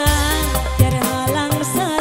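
Live Pantura dangdut band playing loudly through a PA system: a woman singing a wavering, ornamented melody over bass and regular drum beats.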